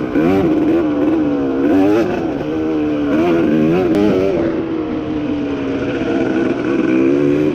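KTM EXC two-stroke dirt bike engine revving on the throttle, its pitch rising and falling several times in quick succession, then holding steadier after about four and a half seconds.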